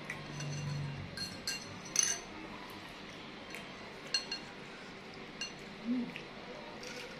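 Spoon clinking against a bowl of bakso meatball soup during eating: a handful of short, sharp clinks, the loudest about two seconds in.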